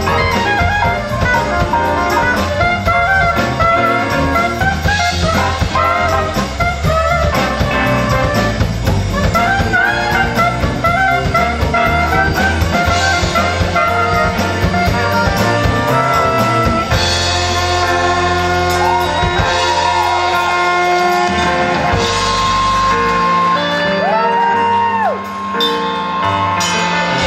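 Live band playing jazz-styled music: drum kit, electric bass, keyboards and a horn section with trombone. Busy ensemble playing gives way, about two-thirds through, to long held horn notes that slide up and down in pitch, with the deep bass dropping away near the end.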